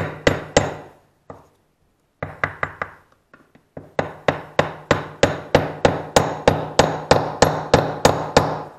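Hammer driving a wedge into the slotted top of a wooden tomahawk handle to lock the head on, in runs of sharp ringing strikes. After a pause the strikes become a steady run of about three or four a second for the last several seconds.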